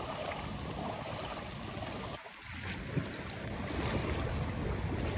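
Shallow floodwater sloshing and splashing around a kayak being paddled, with wind buffeting the microphone.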